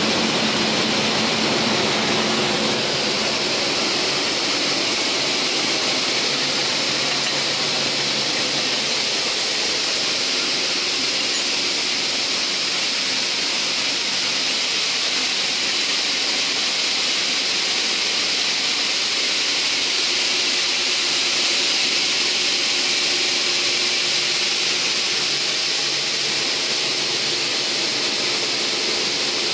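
TOS Svitavy PWR 422 double-shaft multi-rip saw running without wood, a steady loud high-pitched hiss from its spinning saw shafts with its chain-driven caterpillar feed track turning.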